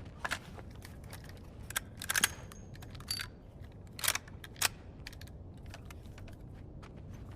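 Sharp metallic clicks and clacks of a hunting rifle's action being worked, about six in a few seconds, some in quick pairs, with no shot fired.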